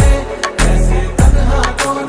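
Background music with a steady beat and deep bass notes that slide down in pitch about once a second.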